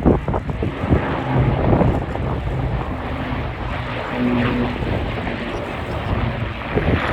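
Wind buffeting the phone's microphone over a steady low rumble, with a few faint clicks and short tones.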